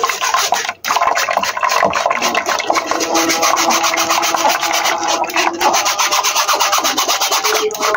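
Wire-mesh kitchen sieve rasping in quick, rapid strokes as fingers rub batter through the mesh, with one short break about a second in.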